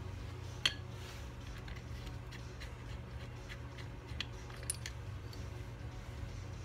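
Small metal clicks of Norton Commando gearbox parts being handled and lifted off the inner cover's shafts: one sharp click about a second in, two more a little after the middle, over a steady low hum.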